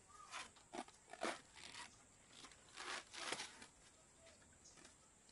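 Woven tape (niwar) rustling and scraping as it is pulled off its roll and drawn through the woven webbing of a charpai, in several soft, irregular swishes. The longest comes about three seconds in, and it quietens after that.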